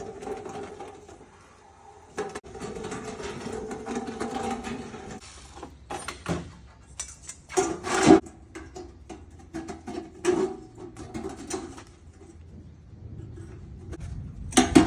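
Maplewood rotary machine running with a steady hum for about five seconds as sheet metal turns through its burring rolls, then a series of irregular metal clanks and taps as the piece is handled.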